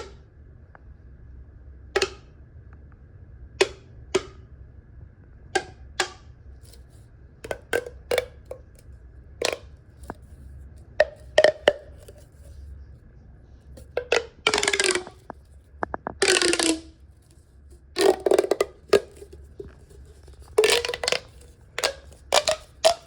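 A green tube making sharp single pops and clicks, each with a short ring. From about fourteen seconds in come several longer noisy runs of about a second each, in which the ringing pitch falls.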